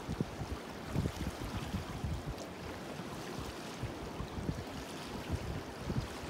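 Wind buffeting the microphone in irregular low gusts over the steady rush of river water in a dam's tailwater.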